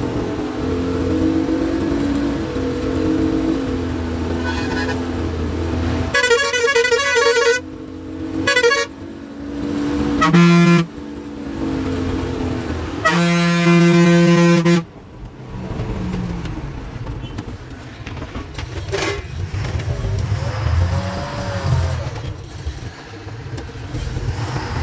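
Bus engine running steadily while the horn is sounded several times: a wavering blast about six seconds in, two short toots, then a longer steady blast ending about fifteen seconds in.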